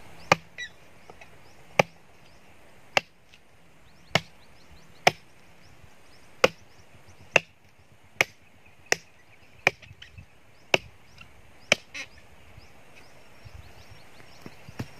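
Short-handled chopping tool striking the base of a tree stump, about a dozen single chops roughly a second apart that stop about twelve seconds in.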